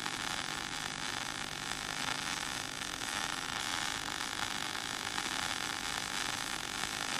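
MIG-MAG welding arc burning as a mixed arc, between short arc and spray arc: a steady hiss with faint scattered crackles. It is the sound of an unstable arc that throws a lot of spatter.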